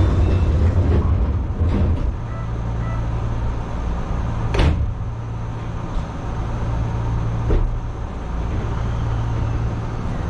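Steady low hum of an Enshu Railway 2000-series electric train, heard from inside the front car. A short sharp click comes about four and a half seconds in, and a fainter one a few seconds later.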